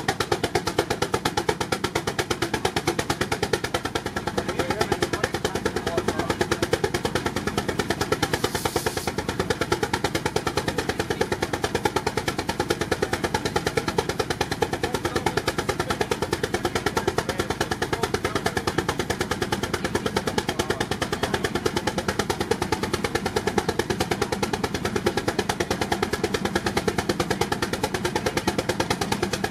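Baker Uniflow steam traction engine working hard against a Prony brake dynamometer, its exhaust beating in rapid, perfectly even chuffs. A brief hiss comes about nine seconds in.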